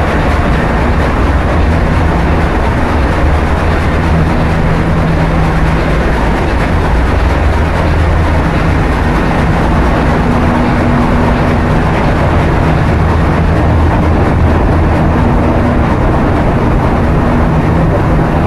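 Container ship engine room machinery running: a loud, steady din of diesel engines and pumps with a deep hum underneath.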